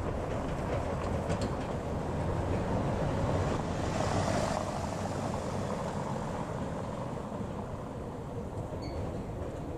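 Tourist road train, a motor unit pulling several wheeled carriages, driving over cobblestones with its engine running and tyres on the stones; it is loudest about four seconds in, and a car passes on the cobbles afterwards.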